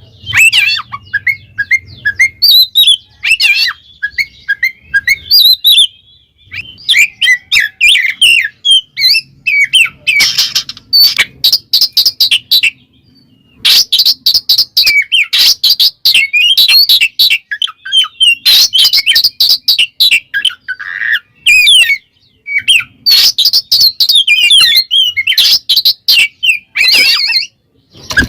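Oriental magpie-robin (kacer) in loud full song ('ngeplong'), a rapid run of varied whistles, trills and harsh chattering notes broken by a couple of short pauses. This is the bird calling out a rival male, a challenge song.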